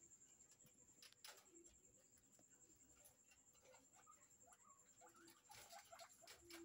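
Faint sounds of guinea pigs moving in a cage: light scratching and shuffling on the plastic floor grid with a few short, soft calls, over a faint steady high whine.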